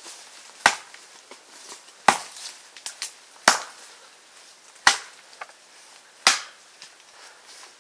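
Steady chopping, five sharp strikes evenly spaced about a second and a half apart.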